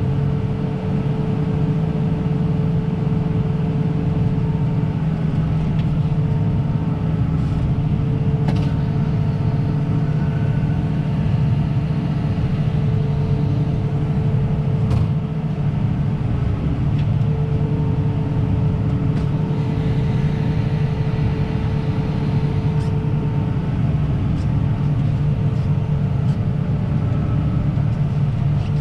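Combine harvester running steadily with its unloading auger engaged, emptying the grain tank: a constant low drone with a steady whine above it.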